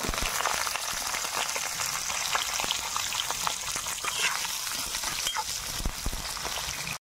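Brinjal (eggplant) pieces frying in hot mustard oil in a kadai: a steady, crackling sizzle.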